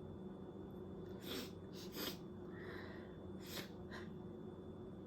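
A person sniffing sharply through the nose, snorting up ground pepper to bring on a sneeze: about five short, faint sniffs, in two clusters.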